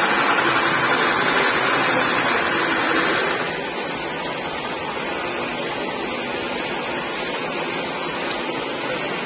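Machine spindle turning a drill bit as it cuts a hole in a metal 1-2-3 block: a steady mechanical whir over workshop machinery noise, which drops somewhat about three seconds in.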